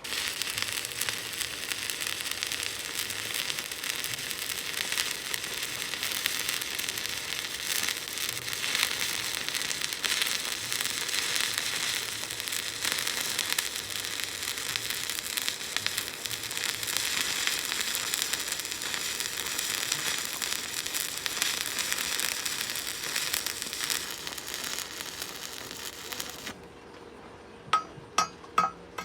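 Stick (shielded metal arc) welding arc crackling and sizzling steadily as a vertical-up weld bead is run; it strikes abruptly and cuts out near the end. Three sharp metallic clicks follow.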